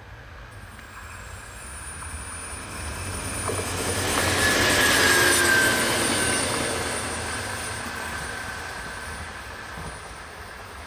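DB class 628 diesel multiple unit passing close by: the sound of its engine and wheels on the rails builds over about four seconds, peaks as it goes past with a brief high squeal, then fades as it moves away.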